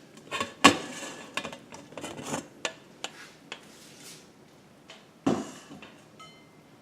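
Irregular clattering and knocking of hard objects, like dishes or utensils being moved, with a sharp clack about two-thirds of a second in and another loud knock a little past five seconds.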